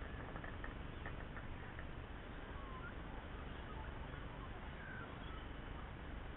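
A few faint, short bird chirps over a steady outdoor hiss, with some light clicks in the first two seconds.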